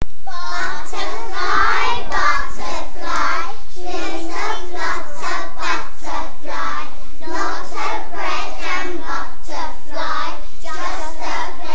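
A class of young children reciting a rhyming poem together in unison.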